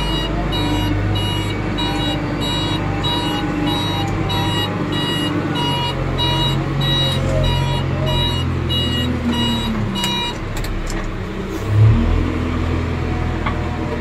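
JCB backhoe loader's diesel engine running under work, with its reversing alarm beeping steadily about twice a second until it stops about ten seconds in. The engine surges briefly near the end.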